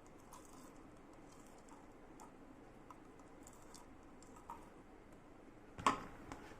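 Slime being worked by hand, giving faint, scattered sticky clicks and crackles, with one louder sharp click near the end.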